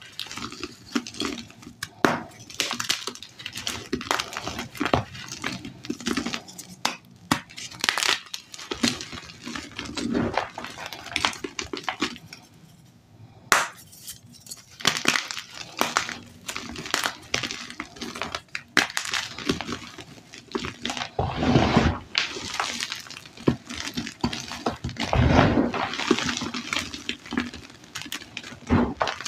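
Blocks of dyed gym chalk crushed and crumbled between the fingers: dense, irregular crunching and crackling, with a brief lull about halfway through and louder, denser crunching near the end.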